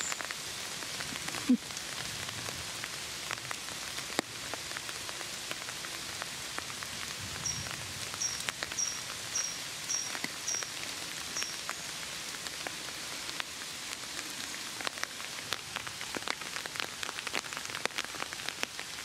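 Steady light rain falling through oak leaves, with single drops tapping close by. In the middle a small bird gives a run of about seven short, high chirps, evenly spaced.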